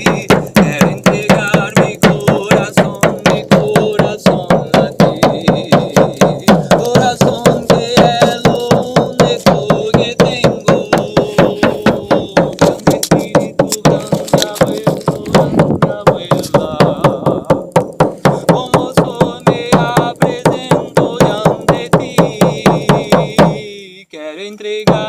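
A drum beaten in a steady rhythm, about four strokes a second, with a voice chanting a song over it. The steady beat stops near the end, leaving a few single strikes.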